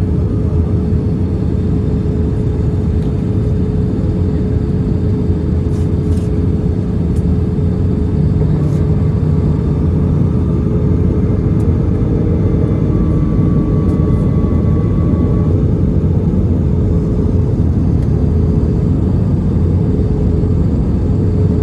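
Steady rumble of an Airbus A320 passenger cabin with the engines running, carrying a constant hum.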